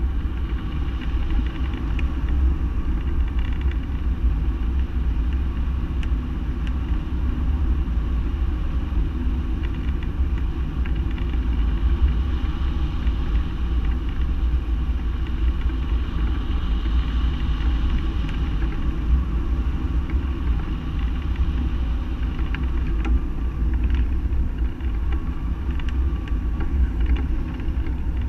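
Steady wind rush of airflow over a hang glider in flight, buffeting the wing-mounted camera's microphone as a constant low rumble.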